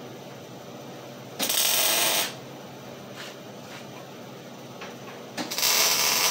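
Electric arc welding on a steel frame: two short bursts of welding crackle, each about a second long, the first about a second and a half in and the second near the end.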